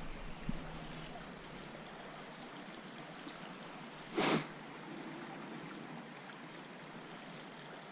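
Steady hiss of flowing river water with light wind on the microphone, a few faint clicks in the first second, and one brief loud whoosh of noise about four seconds in.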